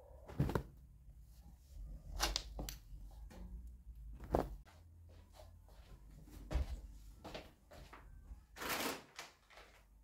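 Scattered light knocks, taps and thumps of household cleaning and handling, with a short swishing noise near the end.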